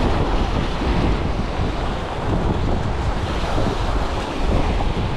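Wind buffeting the microphone over waves breaking and washing around rocks.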